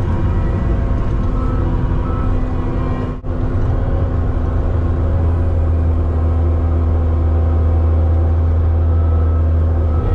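Heavy vehicle engine running steadily with a low drone and a steady hum above it. The sound drops out for an instant about three seconds in.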